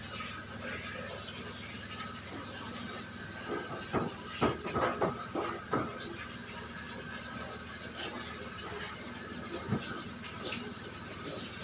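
Handheld shower sprayer running water over a dog in a stainless-steel grooming tub, a steady hiss. A short cluster of knocks and clatters comes about four to six seconds in, and two more single knocks near the end.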